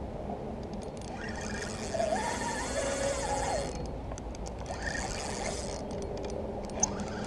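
Spinning reel cranked to reel in a hooked fish, its gears whirring in two bursts, with scattered light clicks.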